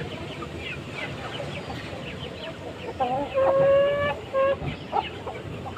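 Chickens clucking and calling, with a steady held call lasting about a second about three seconds in, over many short quick chirps.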